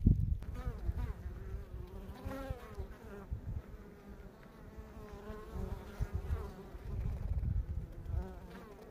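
Honeybees buzzing at a wooden hive entrance, a wavering hum from several bees flying close by that swells and fades as they pass, louder about two seconds in and again near the end. Low rumbling gusts on the microphone run underneath, strongest just at the start.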